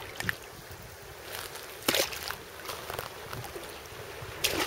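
Water sloshing and splashing, with a sharp splash about two seconds in and a louder, longer splash near the end.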